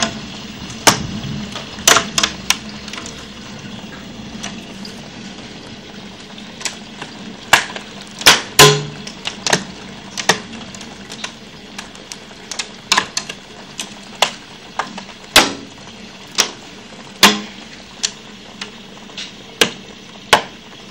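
Hail pelting down: a steady hiss of falling hail and rain, with sharp, irregular clacks of individual hailstones striking hard surfaces close by.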